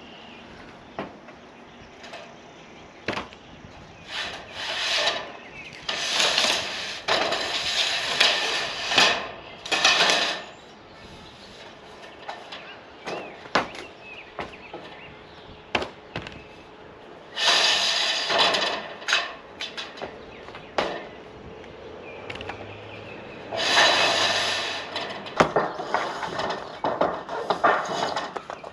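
A screw gun driving screws through a steel ridge cap into the metal roof, in several bursts of a second or two with pauses between. Sharp knocks on the metal panels come in the pauses.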